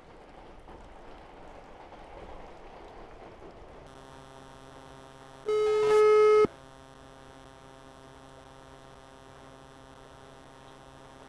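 Rain noise, then a steady electrical hum as a phone call connects through a Bluetooth helmet intercom, with a single loud ringback tone lasting about a second near the middle: the call ringing at the other end.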